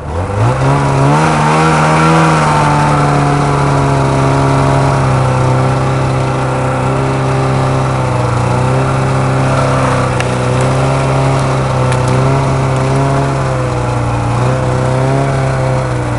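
Snowmobile engine revved up from idle in the first second, then held at steady high revs as the sled pushes slowly through deep snow on an unbroken trail.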